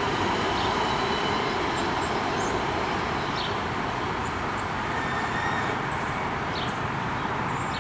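Breda 3000-series Metrorail train pulling away along the track, a steady running rumble that fades slowly as it recedes. A few short high chirps are heard over it.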